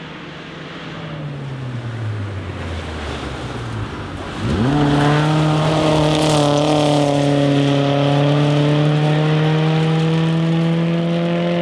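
Rally car engines on a gravel special stage. First one engine's note falls steadily in pitch. Then, about four and a half seconds in, a Toyota Corolla rally car's engine revs up sharply and holds high revs at full throttle, loud and steady and climbing slightly, as it goes past.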